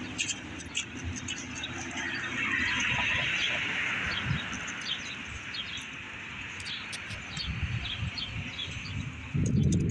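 Street ambience: small birds chirping again and again in quick short notes, over the hiss of passing traffic that swells a couple of seconds in. A loud low rumble comes near the end.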